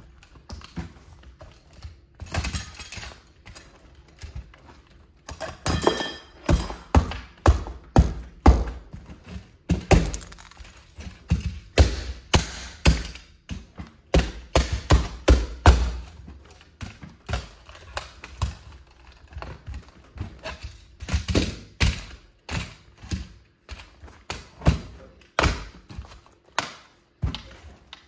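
Platform high heels repeatedly stomping on and grinding a scale model Plymouth Prowler car. There is a long run of irregular thuds with plastic parts cracking and breaking.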